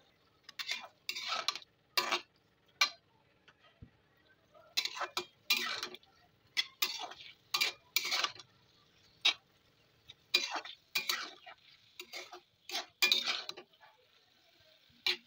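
Metal spatula scraping and stirring chopped pineapple in a metal kadai, in a string of short, irregularly spaced strokes with a brief pause about three seconds in.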